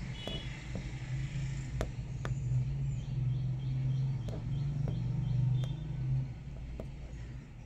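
A low steady hum that swells for a few seconds in the middle and drops away sharply about six seconds in, with a few faint sharp clicks.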